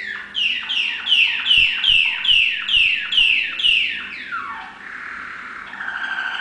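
Domestic canary singing: a run of about ten swooping notes, each falling in pitch, a bit over two a second, then one long falling glide and a fast buzzing trill from about five seconds in.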